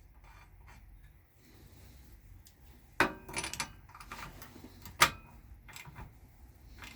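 Handling noises from work on a small motorcycle: a quick cluster of clicks and clinks about three seconds in, then one sharp knock about two seconds later, with a few fainter taps after.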